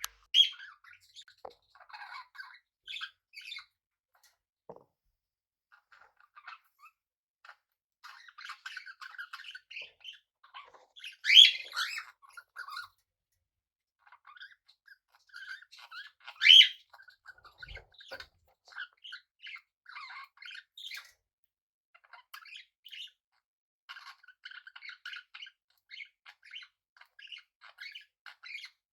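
Pet budgies and cockatiels chirping and chattering in short scattered calls. Three loud squawks stand out: one at the very start, one at about 11 seconds and one at about 16 seconds.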